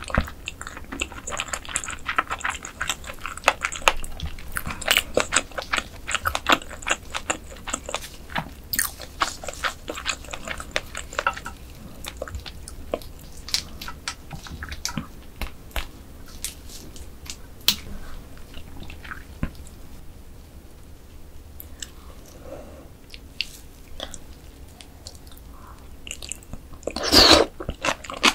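Close-miked chewing and biting of mantis shrimp, with dense crisp crunches and clicks for the first dozen seconds, then sparser, softer chewing. One louder sudden crunch or knock comes near the end.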